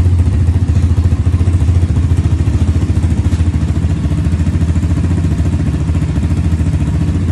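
Dirt bike engine idling steadily, just after the bike has been washed and started so that it runs for a while.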